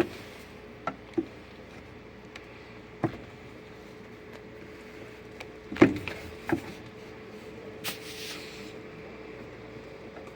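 Scattered knocks and clicks from handling and shaking the parts of a Samsung automatic washing machine while working a stuck part loose during disassembly. The loudest knock comes about six seconds in, and there is a short scraping hiss a couple of seconds later, over a faint steady hum.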